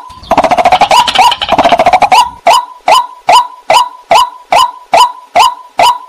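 White-breasted waterhen calling: short, sharp notes, each dropping in pitch, repeated evenly about two and a half times a second. For about two seconds near the start the calls run together into a fast, dense chatter.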